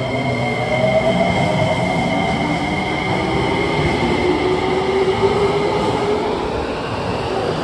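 JR Kyushu 303 series electric train accelerating out of an underground station, its traction motors whining in tones that rise in pitch as it picks up speed, over steady wheel and running noise.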